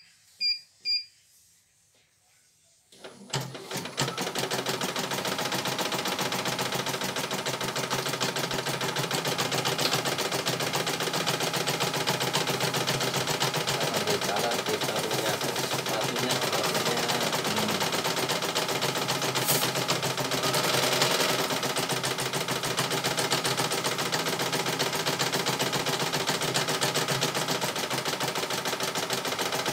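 A few short beeps from the CNY E900 embroidery machine's touchscreen, then about three seconds in the machine starts stitching and runs on with a fast, even needle rattle. It has just been switched from its slow speed setting, so it is stitching at the faster speed.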